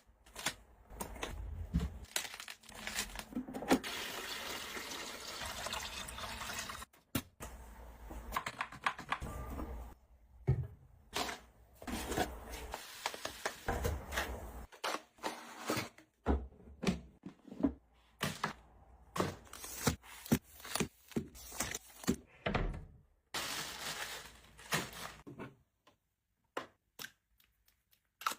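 Close-up household handling sounds: many short clicks, taps and knocks of objects being picked up and set down, with stretches of rustling, hiss-like noise, going quiet over the last few seconds.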